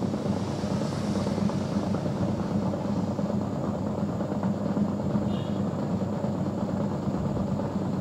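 Polytron PWM-7056 twin-tub washing machine's wash motor running steadily, turning the pulsator in the empty wash tub with a continuous hum. The newly fitted motor and V-belt are driving it: the wash side now turns as it should.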